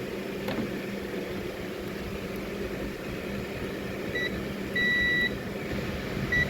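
Digital multimeter's continuity buzzer beeping as the probes touch: a short beep, a half-second beep, then another short beep near the end. The beep means the probed circuit is closed.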